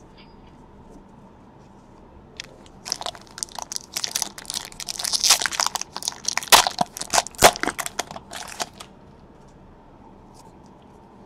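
Foil wrapper of a Panini Chronicles baseball card pack being torn open and crinkled by hand: a dense run of crackles that starts about two seconds in, is loudest past the middle, and stops a couple of seconds before the end.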